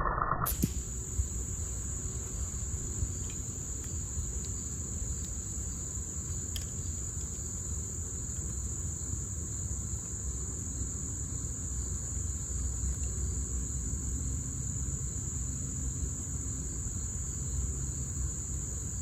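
A steady, high-pitched trill of insects, with a low background rumble beneath it and a few faint ticks.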